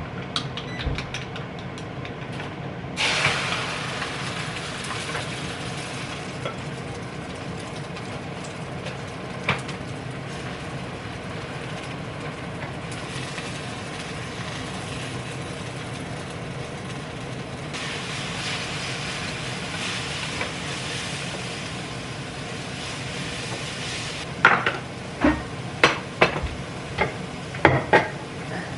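Chopsticks ticking against a bowl as egg is beaten. About three seconds in a sudden hiss of sizzling starts in a hot frying pan and carries on steadily, and near the end a spatula clicks and scrapes in the pan.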